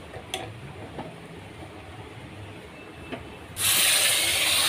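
Hot desi ghee tempering (tadka) with Kashmiri red chilli hitting the pot of potato-tomato curry, with a sudden loud sizzle starting about three and a half seconds in. Before it come a few faint clicks of utensils.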